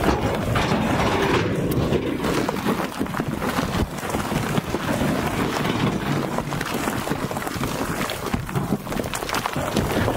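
Heavy diesel machinery running steadily while broken stone clatters and slides out of a tipped dump truck bed, with many small knocks of rock on rock.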